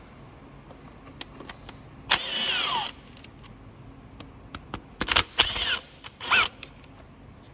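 Cordless battery ratchet running in three short bursts, the first the longest, each with a whine that falls in pitch as it spins out the E-Torx bolts of the lower timing-belt cover. Light metallic clicks of the socket and bolts fall between the bursts.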